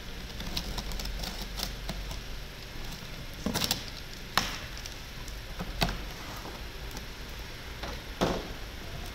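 Utility knife slicing through packing tape on a cardboard box, then the cardboard flaps being pried and pulled open: scratchy cuts and a few sharp snaps and knocks of cardboard, the sharpest about four seconds in.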